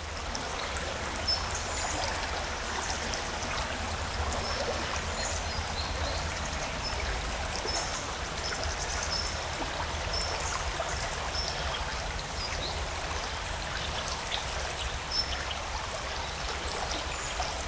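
River water flowing with a steady, even sound.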